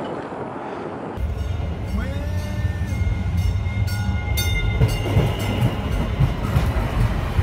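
Baltimore light rail train passing close alongside the car, heard from inside the car: a loud, deep steady rumble with a rising whine about two seconds in and clicks from the wheels and rails.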